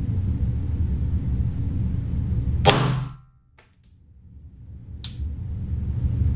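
A single .40 S&W pistol shot from a Glock 22 with a 180-grain jacketed hollow point load, about two and a half seconds in, with a short ring in the room. A low steady rumble runs before the shot, and a faint click follows about two seconds after it.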